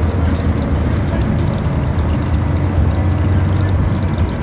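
Scania diesel engine of an Enviro 400 double-decker bus running with a steady low drone, heard from inside the passenger saloon along with road noise.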